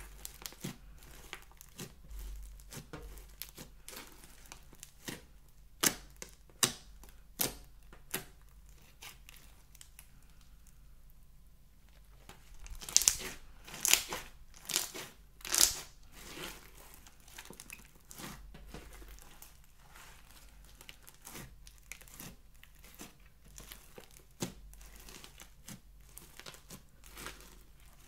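Slime being kneaded and stretched by hand: a steady run of sticky crackles and small air-pocket pops. About halfway through there is a burst of louder pops while a balloon is pressed down into the slime.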